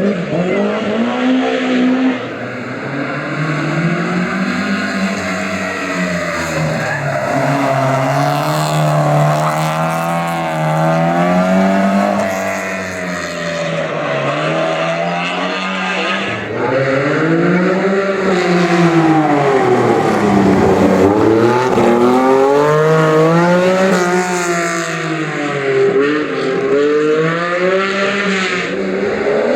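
Rally cars on a stage at full throttle, the engines revving up and falling back over and over with gear changes and lifts, with tyre squeal as they slide sideways.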